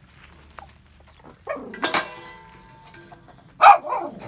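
A dog yelps twice: once about a second and a half in, then louder near the end with a call that falls in pitch.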